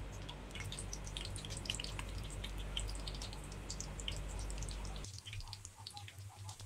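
Battered pumpkin slices (kaddu pakoras) frying in hot oil in a pan, crackling with many small pops and sputters. A low steady hum underneath stops about five seconds in.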